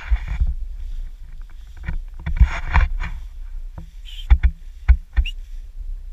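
Tall grass swishing against a moving action camera, with a steady low wind rumble on the microphone. There are two longer swishes, the second about two and a half seconds in, and a few sharp knocks near the end.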